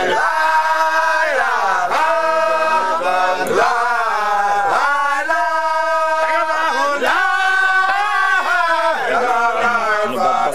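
A group of Baye Fall men chanting a religious chant together in unison. They hold long notes that slide down and back up, with short breaks for breath every second or two.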